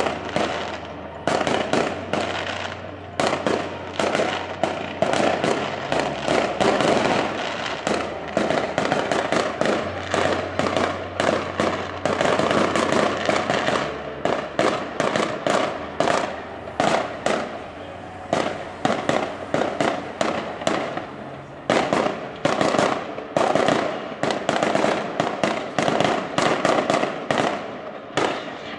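Aerial fireworks bursting in quick succession: a continuous run of sharp bangs and crackles, with no real pause.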